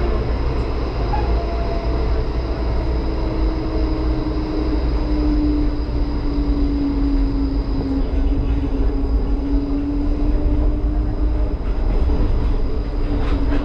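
HermeLijn tram running along street track, heard from inside its cab: a steady low rumble of wheels and running gear. About three seconds in, a hum comes in and slowly falls in pitch.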